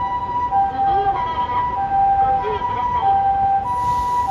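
Japanese ambulance's two-tone electronic 'pee-po' siren sounding on an emergency run, its high and low notes alternating about every half second, over road traffic. A hiss starts near the end.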